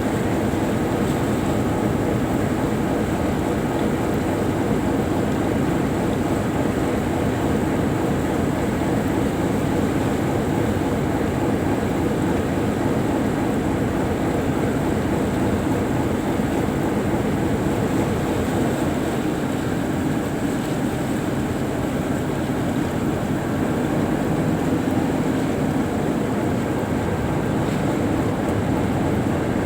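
Tugboat's engine running steadily under way, heard on board as a loud, even drone that does not change.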